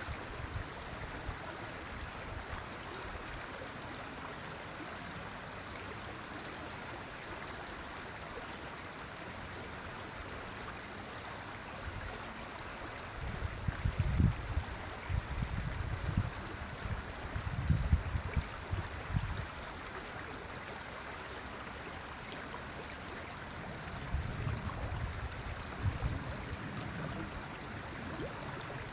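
River water flowing steadily, a constant rushing. Gusts of wind buffet the microphone with low rumbles about halfway through and again near the end.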